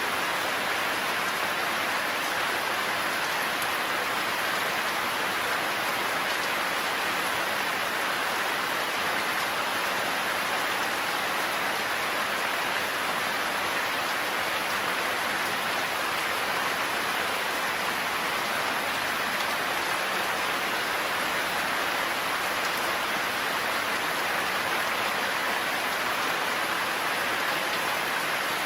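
Heavy rain falling steadily, an even hiss of rain with no thunder.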